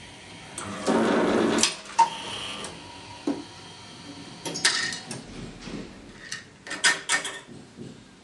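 Electric hollow paper drill of a document punching and binding machine running for about a second as it punches through a stack of papers and cuts the nylon binding tube. Several sharp clicks and knocks follow.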